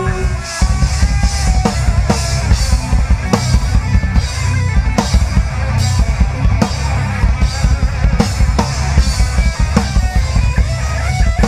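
Rock band music without vocals: a drum kit playing a steady, driving beat with bass and guitar.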